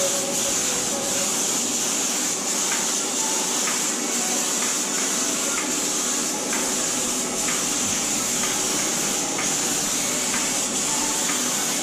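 HVLP turbine spray gun spraying refinishing coating: a steady hiss of air and atomised paint over the hum of the turbine blower.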